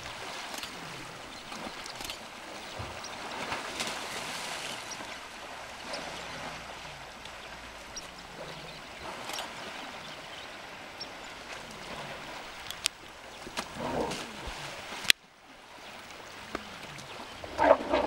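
Water splashing and sloshing as African elephants wade and play in a pond: a steady rushing noise with scattered clicks and knocks. A sharp click comes about fifteen seconds in, and the sound drops briefly quieter after it.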